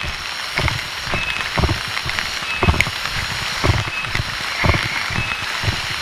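Footsteps of someone walking in sandals on a wet path, dull thuds about twice a second, over a steady hiss of rain.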